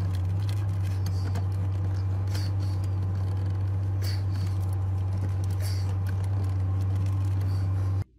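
A steady low hum heard inside a car, with a few small clicks and scrapes from something handled in the lap. The hum cuts off suddenly near the end.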